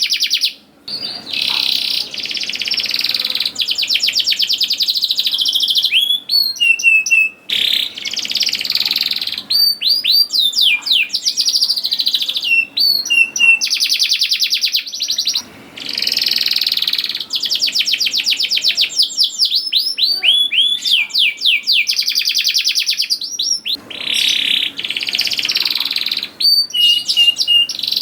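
Canary singing vigorously: long, fast trills and rolls broken by short rising chirp notes, with a few brief pauses.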